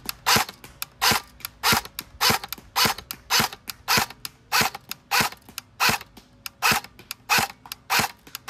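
Electric airsoft SCAR-L rifle firing semi-auto shots at a steady pace, about one every 0.6 s: each is a sharp snap of the gearbox cycling, run on a 7.4 V LiPo battery.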